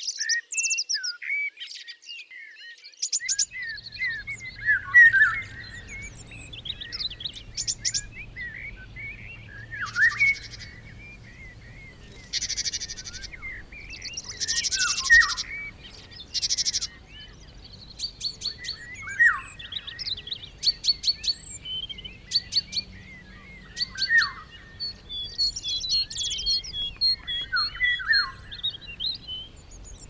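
Several songbirds singing at once: overlapping short chirps, whistled phrases and quick trills, with a faint low rumble underneath from a few seconds in.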